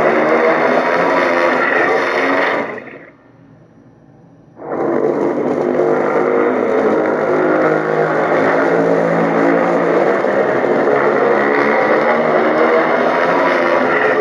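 Godzilla roar sound effects: one long roar fades out, and after about a second and a half of quiet a second roar starts abruptly and is held for nearly ten seconds.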